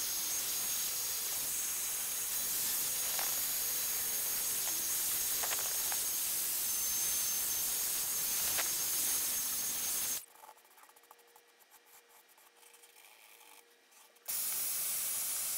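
Handheld vacuum with a brush attachment running, a steady airflow hiss with a high motor whine, as it sucks dust off a bass speaker cone. It switches off about ten seconds in and starts up again about four seconds later.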